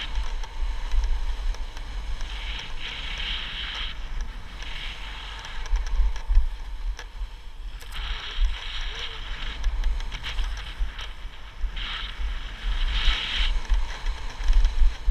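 Wind rumbling on the microphone during a downhill ski run, with swells of hiss from skis scraping over the snow every few seconds as the turns are made.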